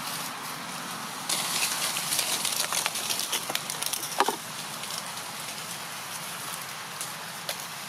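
Dry leaf litter rustling and crackling for about three seconds, starting about a second in, with one short sharp sound, the loudest moment, near its end. Then quieter background.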